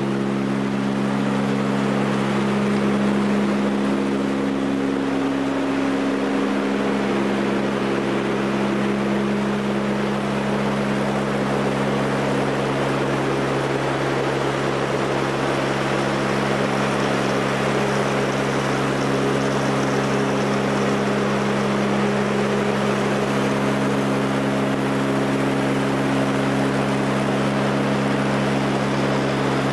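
Four Allison 501 turboprop engines and propellers of a Lockheed L-188 Electra, heard inside the cabin in flight: a steady drone with a low hum of several propeller tones, some of which swell and fade, over a rush of air noise.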